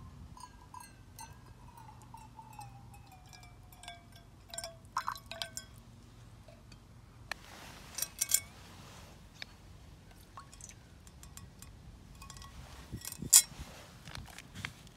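Water poured from a metal flask into a stainless-steel Kelly Kettle cup, making a ringing tone that slowly falls in pitch over about five seconds. It is followed by metal clinks and light knocks as the cup is handled and set down, with one sharp clink near the end.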